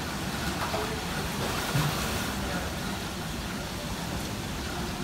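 Steady outdoor noise with light water splashing from a child kicking in a swimming pool while held by an instructor.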